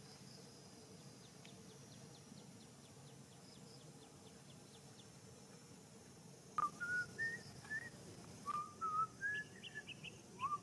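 Faint outdoor background with a few light ticks, then, from about six and a half seconds in, a series of short clear whistled notes, each sliding upward, in phrases that climb in pitch.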